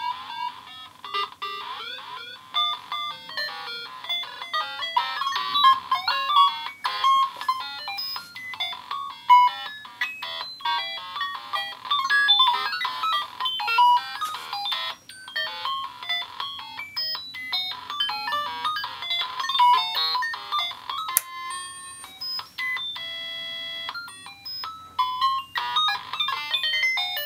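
Circuit-bent VTech Alphabet Apple toy driven by a Synthrotek 8-step sequencer: a fast, glitchy run of short electronic bleeps jumping in pitch, with clicks between them. Near the end a single buzzy tone is held for about a second before the bleeps resume.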